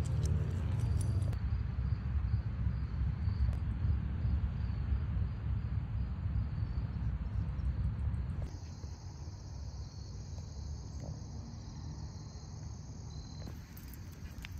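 Insects, crickets by their sound, chirping steadily in a high, even chorus. A loud low rumble lies under them and drops away about eight and a half seconds in.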